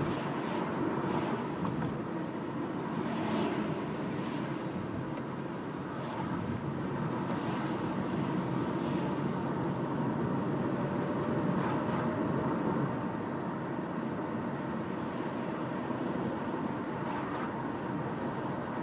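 Steady road noise of a car being driven, heard from inside the cabin: engine and tyres on the road, with a few brief swishes spread through it.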